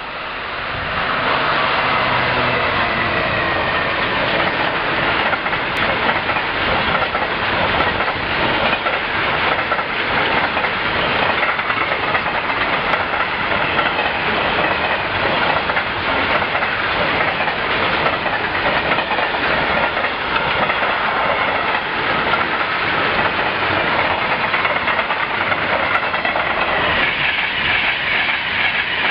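A Class 66 diesel locomotive's two-stroke V12 engine runs as it passes close by. A long rake of freight flat wagons follows, wheels clicking over the rails. Near the end an LNER Class 91 electric express rushes past on the adjacent line, adding a brighter, louder rush of noise.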